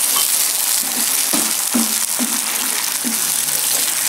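Chili-tomato sambal terasi sizzling as it is re-fried in a pan, loosened with a little water. A wooden spatula stirs through it in strokes about twice a second.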